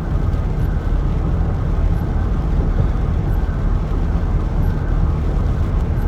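Steady engine and tyre noise of a car driving on a wet highway in rain, heard inside the cabin, with a faint tick about every second and a half.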